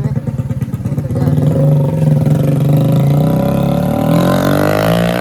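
Hero Splendor motorcycle engine running, held steady for a few seconds and then revved, its pitch climbing over the last two seconds.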